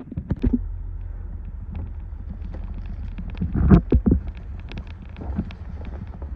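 Vehicle driving over a rough back road: a steady low rumble with scattered rattles and knocks, and a heavier jolt about halfway through.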